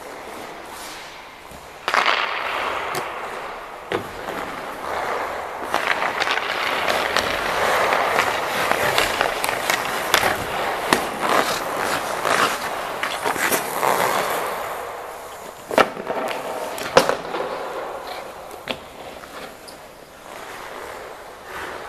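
Ice skate blades scraping and carving across the rink surface, swelling and fading, with sharp clacks of pucks hitting the goalie's gear, stick or net: one about two seconds in, another about two seconds later, and two more about a second apart in the later part.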